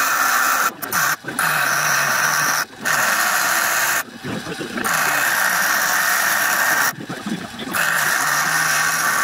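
Bench grinder wheel grinding the steel of an adjustable wrench, a harsh, even grinding noise in five passes of about one to two seconds, with short breaks between them where the steel is lifted off the wheel.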